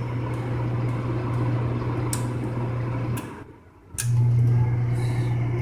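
American Standard gas furnace running with a steady low hum. The hum cuts out a little over three seconds in and starts again with a click about a second later.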